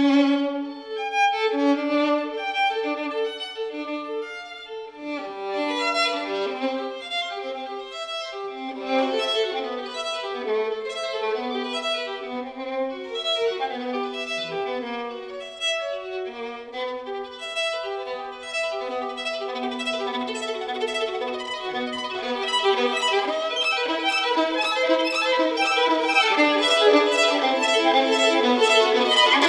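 Solo violin sight-reading a fast passage of quick running notes, climbing higher and growing louder toward the end.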